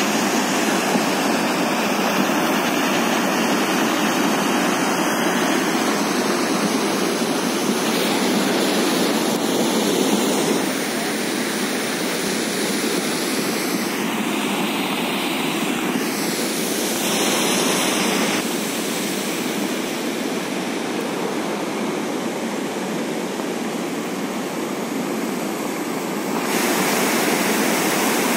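Steady rush of floodwater pouring down a rocky mountain gully. It gets a little quieter about ten seconds in and louder again near the end.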